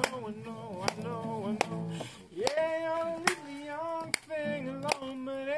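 A voice singing a slow song, with a guitar and a sharp beat about every 0.8 s keeping time.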